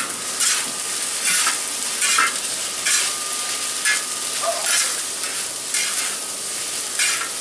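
Pork lo mein (noodles, pork and vegetables in oil) sizzling on a steel discada, or cowboy wok, while being stirred and tossed for the final mix. The scraping strokes come about once a second over a steady frying hiss.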